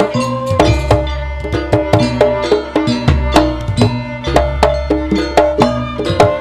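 Traditional East Javanese jaranan ensemble music: drums and tuned gongs struck in a fast, even rhythm, with a deep gong hum sustaining underneath.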